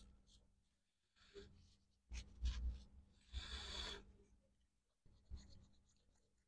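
About four short bouts of scratchy rubbing and brushing with low thumps, the loudest between two and four seconds in: hands working on a laptop logic board.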